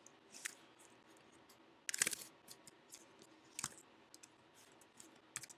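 Faint keystrokes on a computer keyboard, scattered single taps with a quick run of several about two seconds in.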